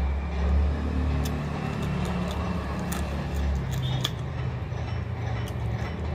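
Sharp, irregular crunching clicks of chewing on crunchy, bony food, over a steady low rumble.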